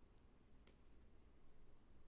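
Near silence: faint room tone with one soft click about two-thirds of a second in.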